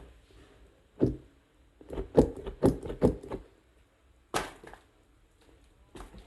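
Toy vehicles and marbles knocking and clattering down a wooden HABA marble-run slope: a sharp knock about a second in, a quick run of clicks and knocks around two to three seconds in, then two more single knocks.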